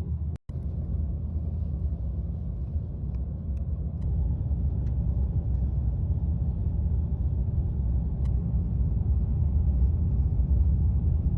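Steady low rumble of a moving vehicle, broken by a short gap about half a second in, with a few faint ticks over it.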